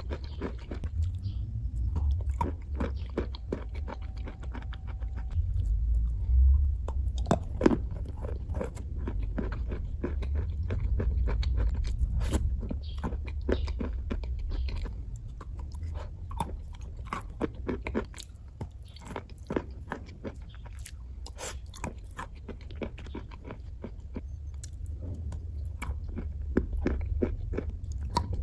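A person biting and chewing slate pencils close to the microphone: a dense run of sharp crunches and crumbling, over a low rumble.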